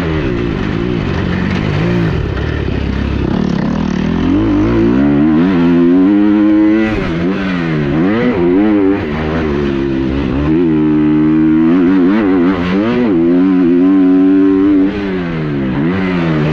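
Motocross bike engine revving up and down over and over as it is ridden hard on the track. The pitch climbs and drops every second or two, after a lower, rougher few seconds at the start.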